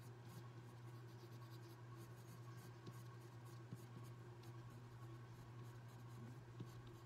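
Water-soluble coloured pencil scratching short, quick lines on watercolour paper, faint, over a steady low hum.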